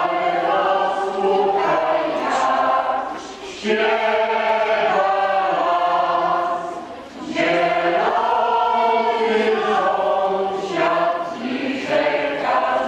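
Mixed choir of women's and men's voices singing a waltz song, with short breaks between phrases about three and a half and seven seconds in.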